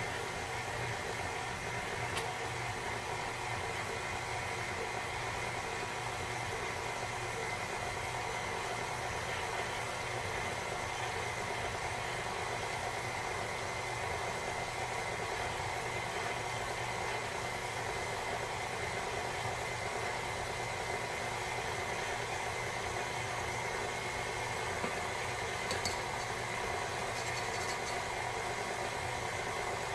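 KitchenAid Artisan stand mixer running steadily, its motor humming as it kneads pizza dough that is not yet clearing the sides of the steel bowl. A few faint clicks come near the end.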